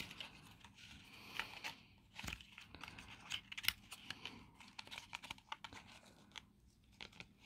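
A small cardboard product box being worked open by hand to pull out an eyeliner that is stuck inside: faint, scattered rustling, scraping and crinkling with a few small clicks.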